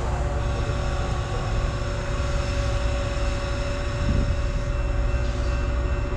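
Steady rumble and hum of a train at a station, with a strong low rumble and several steady tones held throughout.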